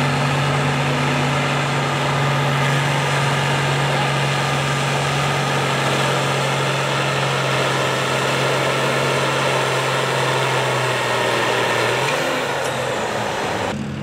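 Farm stock diesel tractor engine running hard under full load as it drags a weight-transfer pulling sled, a steady heavy engine note that shifts and eases off about twelve seconds in.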